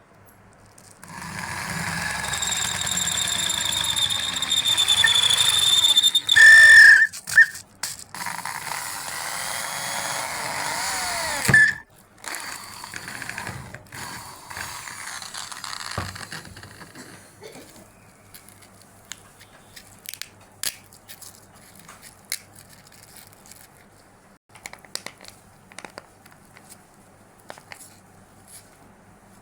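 Electric drill rigged as a grinder running at speed with a high-pitched whine, a loud squeal partway through and a couple of brief stops, then switching off after about twelve seconds. Light clicks and knocks follow.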